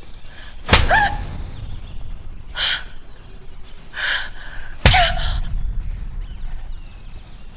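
Two sharp open-handed slaps to the face, about four seconds apart. Each is followed by a woman's short gasp.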